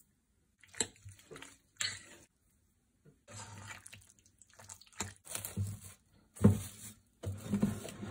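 A metal spoon stirring wet, marinating chicken pieces in a glass bowl: irregular wet squelching with sharp clinks of the spoon against the glass, the loudest about six and a half seconds in.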